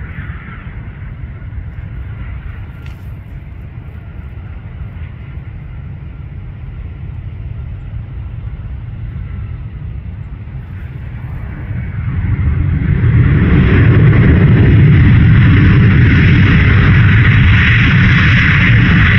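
Boeing 737 jet landing: a steady low engine rumble during the final approach and touchdown, then, about twelve seconds in, a much louder rush of jet noise rises quickly and holds as the airliner rolls out along the runway, typical of reverse thrust on the landing roll.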